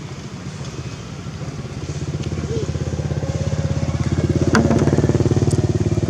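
A small engine running with a fast, even pulse, growing louder from about two seconds in as it comes closer.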